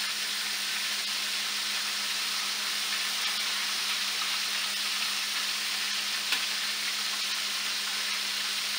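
Cornmeal-breaded catfish fillets frying in hot oil in a stainless steel skillet: a steady sizzle, with one light click, metal tongs against the pan, about six seconds in.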